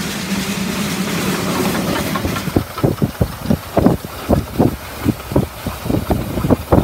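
A narrow-gauge steam locomotive runs close by with a steady rumble and steam hiss. Then, after about two and a half seconds, a Welsh Highland Railway NGG16 Garratt works past with sharp exhaust chuffs, about three a second and slightly uneven in their spacing.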